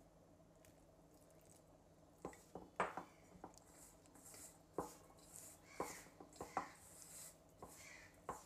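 Hand mixing and crumbling a dry flour mixture in a stainless steel bowl: faint rustling with scattered light knocks and scrapes of fingers against the steel, starting about two seconds in.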